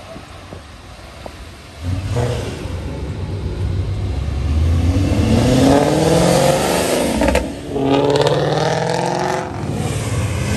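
Ford Mustang accelerating hard past. Its engine comes in loudly about two seconds in and revs up, drops briefly about seven and a half seconds in, then revs up again.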